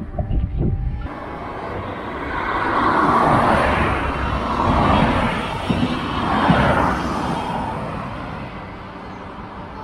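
Road traffic passing, with a diesel passenger train going by behind it: a steady rushing of tyres and engines that swells and falls away several times and fades near the end.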